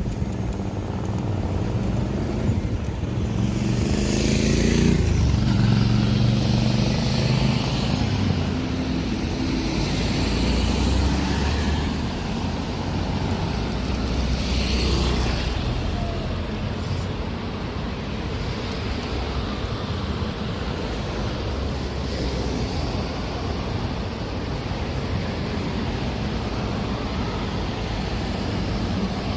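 City street traffic rumbling steadily. A motor vehicle passes close a few seconds in, its engine note dropping as it goes by, and more vehicles swell past later.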